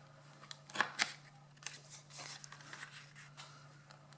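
A handheld corner-rounder punch snapping through kraft cardstock to round a box tab's corner: two sharp clicks close together about a second in. Then the card is handled, a soft paper rustle.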